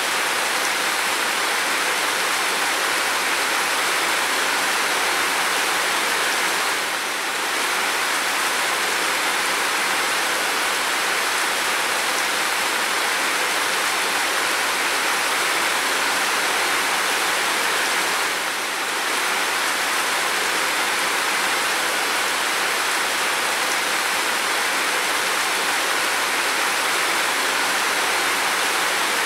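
Steady rain on a window and roof: an even, continuous hiss with no single drops standing out. It dips slightly for a moment twice.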